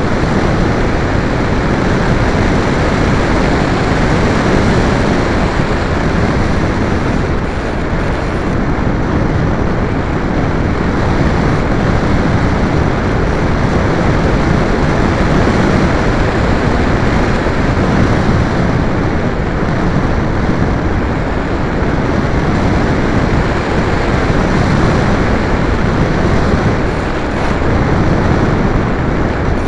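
Steady rushing wind noise on the onboard camera of a Thermik XL RC glider in flight, with no motor tone.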